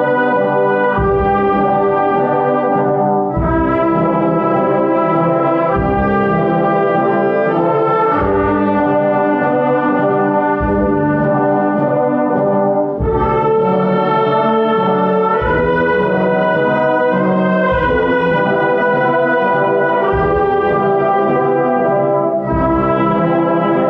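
Brass-led band playing a slow Maltese funeral march (marċ funebri), with held brass chords changing every second or two over a low beat roughly every two and a half seconds.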